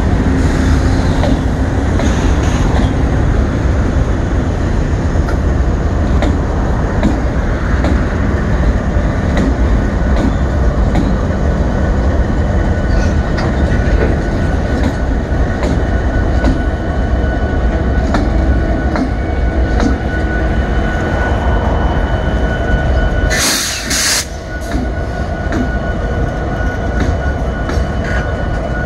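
Norfolk Southern freight's diesel locomotives (EMD SD40-2, GE Dash 9-44CW and EMD SD70ACe) passing at close range: a loud, steady engine rumble with wheels rolling on the rails and a faint steady whine. A short burst of noise comes in near the end.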